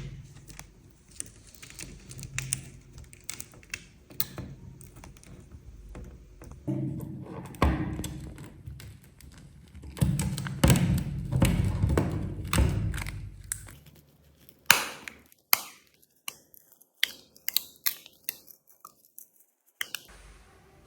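Light taps, clicks and a few dull thunks of small hard objects being handled, with a low hum in stretches during the first two-thirds.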